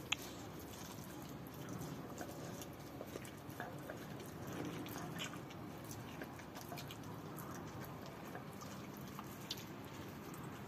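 Seven-month-old Rottweiler licking and chewing a raw pig heart: scattered wet smacking and squelching clicks over low background noise, with one sharp click near the start.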